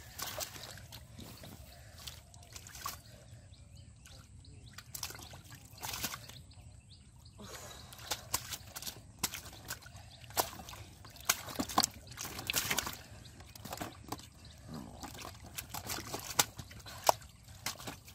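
Bare hands splashing and sloshing in shallow muddy water, with irregular sharp wet slaps, as catfish are grabbed out of the mud. Near the end a catfish is dropped into a plastic crate.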